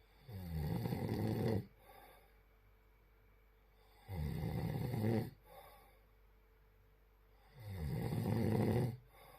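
Snoring: three long snores, each over a second long and coming about every three and a half seconds, each followed by a short, much fainter breath.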